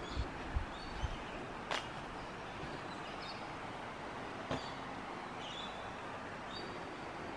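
Steady outdoor background hiss with faint, short bird chirps now and then. A few low thumps in the first second and two sharp clicks, about two and four and a half seconds in.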